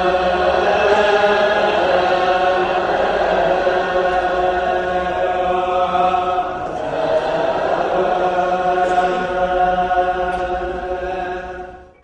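Ethiopian Orthodox church hymn chanted by a choir in unison, with long held notes, fading out at the end.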